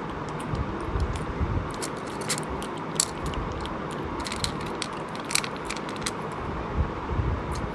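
A person eating cooked sheep's head close to the microphone: chewing and biting, with many short sharp clicks and crackles over a steady background hiss.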